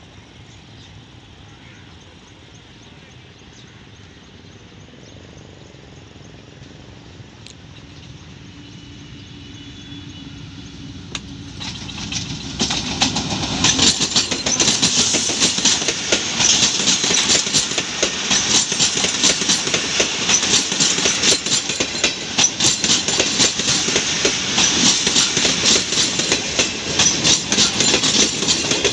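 A passenger train behind a diesel locomotive approaches as a faint rumble that builds slowly, then turns loud about twelve seconds in as the locomotive passes close by. The coaches follow, rolling past with dense, rapid clickety-clack of wheels over rail joints.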